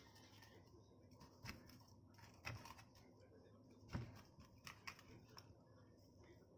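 Faint scattered clicks and taps of small objects being handled, the loudest about four seconds in, over quiet room tone.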